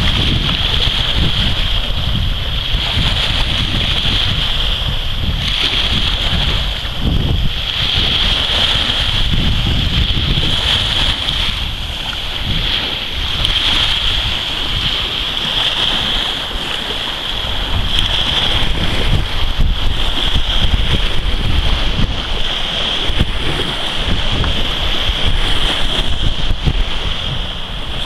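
Wind buffeting the microphone over small waves breaking and washing up on a sandy shore, the surf hiss swelling and fading every couple of seconds.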